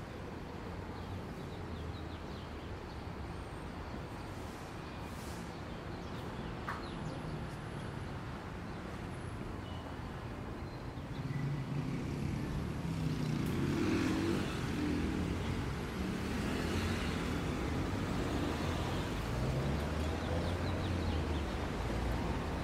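City avenue traffic: a steady hum of passing cars, growing louder about halfway through as vehicle engines pass close.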